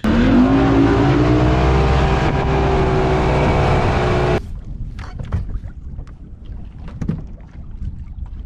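Bass boat's outboard motor running at speed, its pitch rising over the first second and then holding steady, with heavy wind noise on the microphone. The sound cuts off abruptly a little over four seconds in, leaving a much quieter stretch of scattered light taps and knocks.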